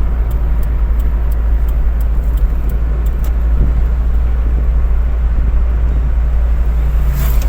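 Steady road and engine noise inside a moving car's cabin: a deep, constant rumble, with a low engine hum joining in from about halfway through.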